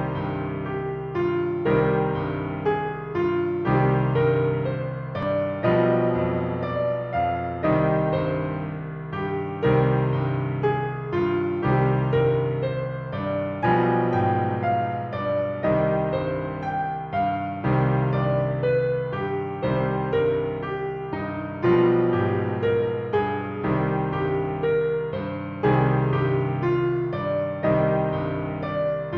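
Instrumental background music: a tune of struck notes that ring and fade, with bass notes falling in an even rhythm.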